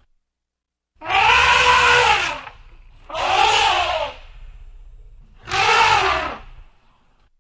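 Elephant trumpeting: three loud, brassy calls, each lasting about a second, with the pitch swelling up and falling away.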